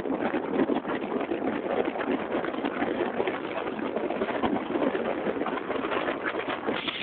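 Wind buffeting the microphone with the rumble of a vehicle travelling along a road: a steady, choppy noise.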